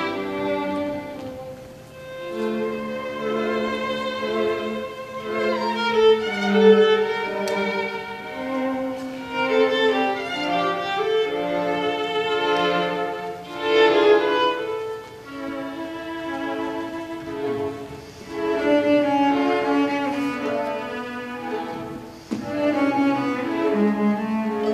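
String quartet (violins, viola and cello) playing a bowed passage of long held notes with vibrato, phrase after phrase; a short break near the end leads into a new phrase.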